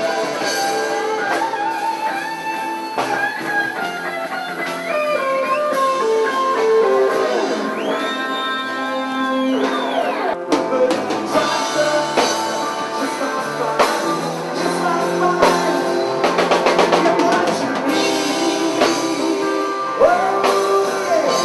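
Rock band playing live: electric guitar, bass, drum kit and a singing voice.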